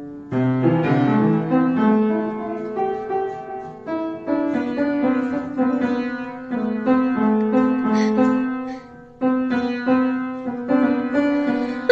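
Background music: a piano melody played in short phrases.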